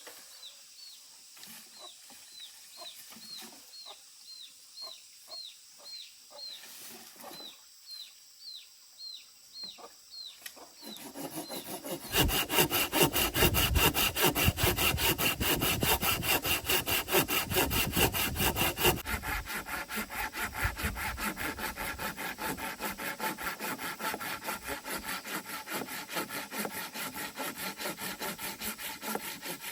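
A bird peeps repeatedly, a high falling chirp about twice a second. About twelve seconds in, fast rhythmic rasping strokes begin, like a hand saw cutting wood, and keep going, loudest for the first several seconds.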